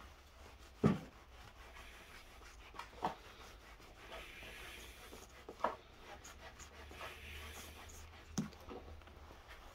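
Cloth rubbing over a freshly polished metal ring, wiping off the polishing residue, with four short knocks as the ring is handled against the wooden bench, the first, about a second in, the loudest.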